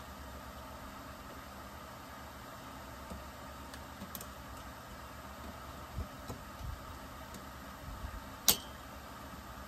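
Small clicks and taps of metal tools and chainsaw parts being handled on a workbench over a steady background hum, with one sharp metallic click about eight and a half seconds in.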